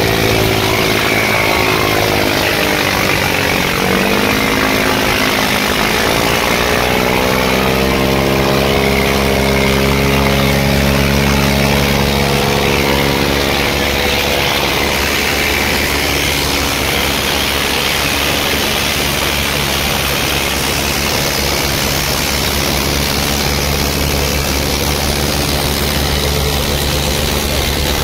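Tractor diesel engines, an Eicher 557 and a Swaraj 855, running hard under heavy load as they pull against each other in a tug-of-war. The engine note sags about four seconds in, climbs back, and then holds steady.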